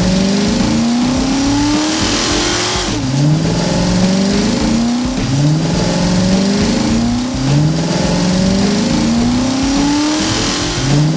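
Race car engine sound effect revving up again and again, its pitch climbing and then starting over about every two seconds.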